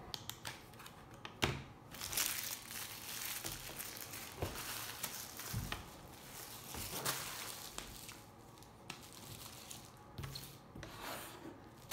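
Clear plastic wrapping crinkling as it is handled by hand, in irregular crackles with a few sharp clicks.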